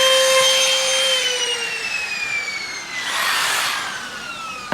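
Electric power tool motor whining at a steady high pitch, then winding down slowly after about a second, its pitch falling as it coasts. About three seconds in there is a brief rushing noise.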